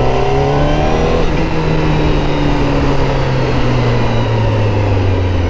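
Honda CBR1000RR-R Fireblade SP's inline-four engine through its Akrapovic exhaust, accelerating hard. The note climbs for about a second, drops sharply at a gear change, then sinks slowly as the throttle eases.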